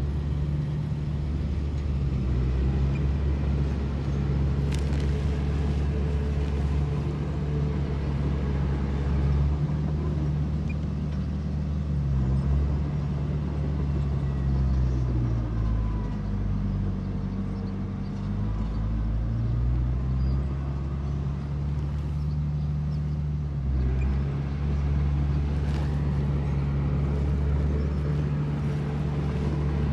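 Heavy earthmoving machine's diesel engine running steadily. About halfway through, the engine note sinks and then climbs back, and there are a few sharp clanks.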